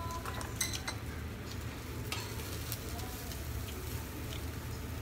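Meat sizzling on a yakiniku tabletop grill, with a few scattered clicks of utensils and a steady low hum underneath.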